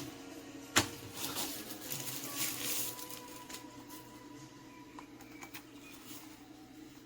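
A single sharp click about a second in, followed by a couple of seconds of rustling and a few faint ticks.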